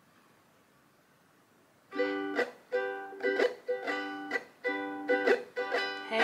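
Near silence for about two seconds, then a ukulele starts strumming chords in a steady rhythm: the instrumental intro to a song.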